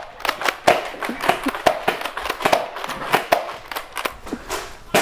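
Rapid, irregular gunfire: sharp shots several a second, with a last loud one near the end.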